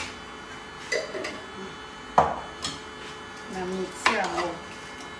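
Kitchen knocks and clinks: a jar and a spatula against a cooking pot and the worktop, four sharp knocks with the loudest a little past two seconds in. A voice speaks briefly about three and a half seconds in.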